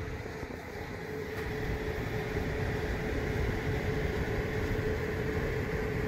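Homemade heat-pump water heater running, its compressor and fan giving a steady hum with a steady drone. It grows slightly louder over the first couple of seconds.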